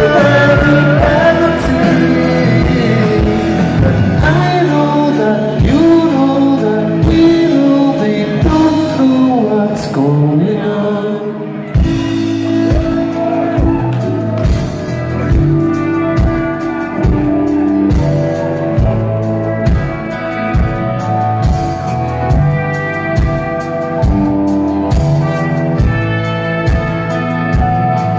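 Live rock band playing loud, with guitars, bass and a drum kit. About twelve seconds in the sound dips briefly and a new, steadier section begins.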